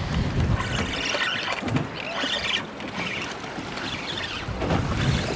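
Wind buffeting the microphone and choppy water slapping against a small boat's hull: a steady low rumble with uneven splashy hiss.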